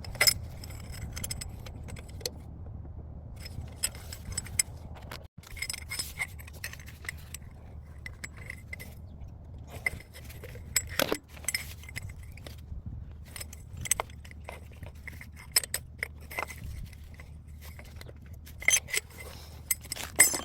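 Ratchet wrench clicking in short runs, with metal tools and bolts clinking, as the catalytic converter's mounting bolts are tightened.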